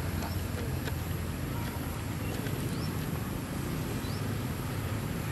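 Steady low outdoor rumble, with a few faint, short, high rising chirps.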